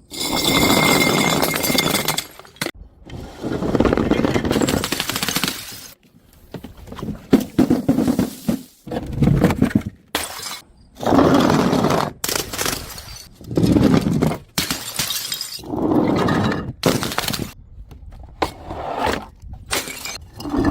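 Glass bottles smashing and shattering one after another, about a dozen separate crashes of a second or two each, with abrupt cuts between them.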